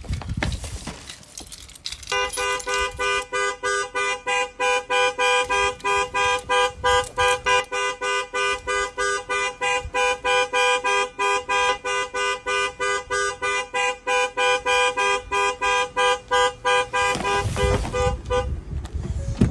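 Two-tone car horn sounding in rapid, evenly spaced blasts, about three a second, for some fifteen seconds before stopping.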